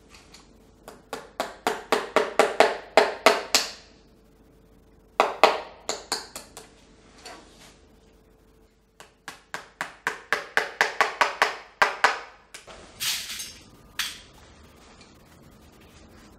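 A shoemaker's hammer tapping on a shoe held on its last, in three quick runs of sharp strikes about four or five a second, followed by a short scraping sound near the end.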